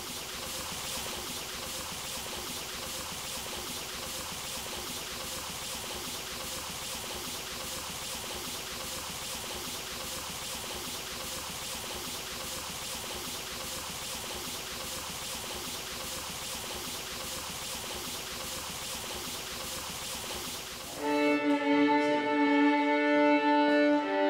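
Steady hiss of phonograph wax-cylinder surface noise, with a faint swish repeating about once a second. After about twenty seconds the hiss gives way to a fiddle playing louder held notes.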